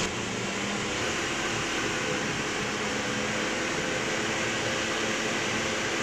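Steady hum and hiss of a running fan or similar machine, with a few faint steady tones and no distinct knocks or clicks.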